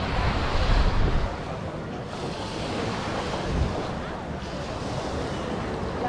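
Wind buffeting the microphone, heaviest in the first second, over a steady rush of ocean surf breaking on the beach.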